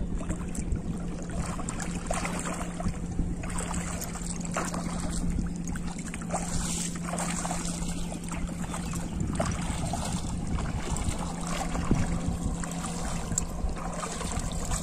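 Water splashing and sloshing as people wade through knee-deep floodwater and handle a cast net, in irregular bursts over a steady low hum.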